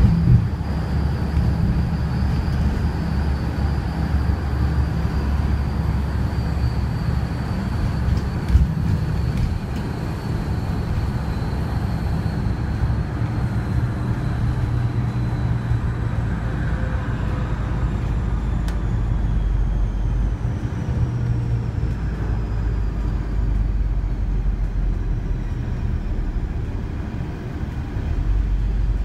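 Wright StreetDeck double-decker bus running at speed, heard from inside the cabin: a steady engine drone with road noise and a thin high whine. The whine falls slowly in pitch as the bus slows, with a couple of brief knocks of body rattle.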